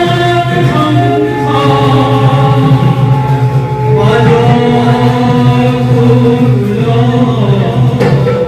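Bhaona devotional music: voices chanting in long held notes over a steady low accompaniment, heard through a PA sound system.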